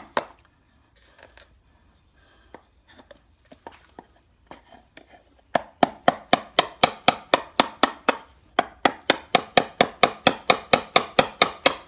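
Claw hammer striking a chisel into a wooden door jamb, chiselling out a recess in rapid, even blows about five a second. The blows pause for about five seconds with only a few faint taps, then resume about five and a half seconds in.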